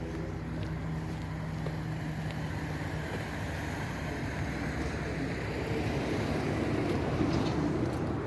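An engine running with a steady low hum, while a rougher engine and tyre-like noise swells to its loudest about seven seconds in and then eases, as a vehicle or machine draws close.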